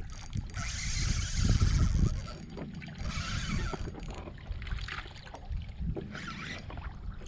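Water lapping and slapping against a small boat's hull, with wind rumbling on the microphone and a few short gusts of hiss.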